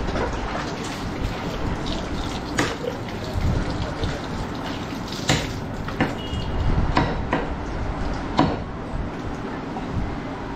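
Water splashing from a plastic mug over a hanging skinned goat carcass as it is rinsed by hand, with a few sharp knocks over steady background noise.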